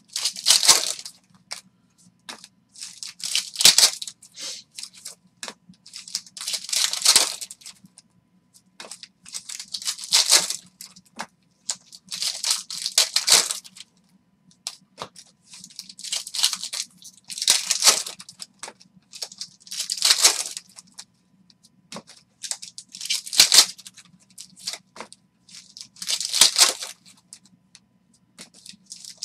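Trading cards handled by hand: a foil pack wrapper, then a stack of football cards slid and flipped through one by one. The cards make short rustling, scraping bursts about every three seconds over a faint steady hum.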